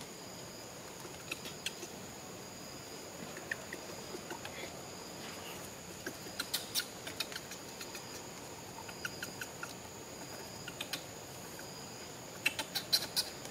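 Steady high-pitched insect drone made of two thin tones, with scattered sharp clicks and crackles. The clicks bunch together about six seconds in and again near the end.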